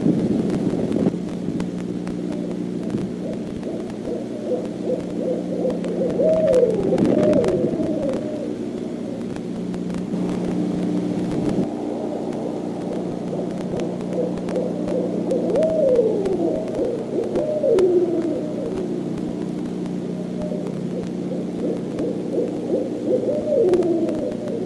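Owls calling: runs of short hoots and, in three bouts, wavering hoots that slide downward in pitch. A steady low hum sits underneath.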